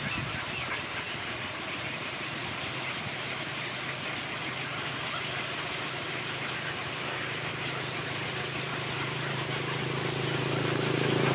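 Steady background noise with a low engine-like hum that comes in and grows louder over the last few seconds, like a motor vehicle approaching.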